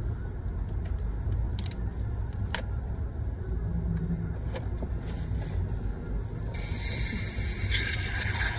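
Steady low rumble of a car heard from inside the cabin, with a few faint clicks and plastic rustles from handling bottles in a bag. Near the end a loud hiss comes in and grows stronger.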